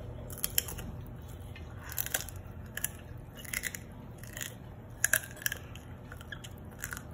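Crispy fried pork skin crunching as it is bitten and chewed: sharp, crackly crunches in irregular clusters, about one a second.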